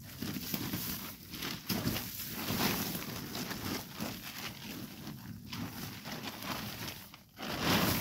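A large tarp rustling and flapping as it is gathered up and shaken out, with dry fallen leaves crunching underfoot. The rustling comes in uneven swells, loudest near the end as the sheet is lifted and shaken.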